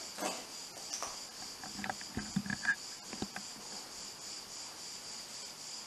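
Crickets chirping steadily in a high, even pulse, with a few soft knocks and rustles about two to three seconds in.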